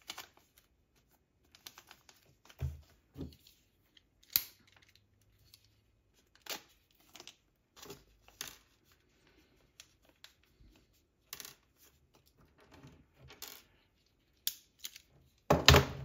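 Small parts being handled on a workbench: a small plastic parts bag crinkling as it is opened, and small hard parts clicking and tapping onto the bench top in scattered short knocks, with a louder cluster of knocks near the end.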